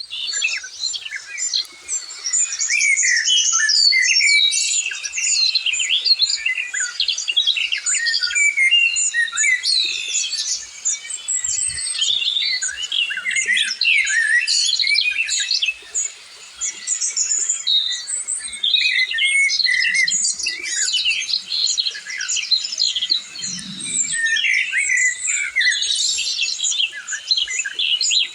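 Many birds chirping and calling at once, a dense chorus of short, high, overlapping chirps and twitters.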